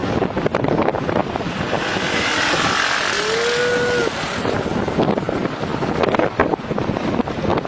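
Airliner jet engines swelling as a plane passes low overhead, loudest from about two to four seconds in, with wind buffeting the microphone throughout. A short pitched whoop sounds near the loudest point.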